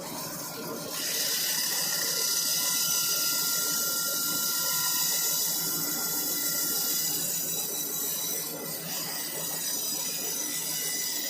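Portable horizontal band sawmill's blade sawing through a log: a steady high hiss with a thin, even whine, getting louder about a second in.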